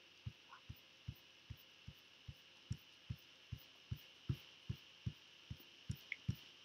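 A steady run of soft, low thumps, about two and a half a second, evenly spaced, over a faint steady high-pitched hum.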